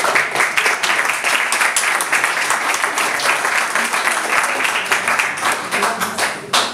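Audience applauding: a roomful of people clapping steadily and densely.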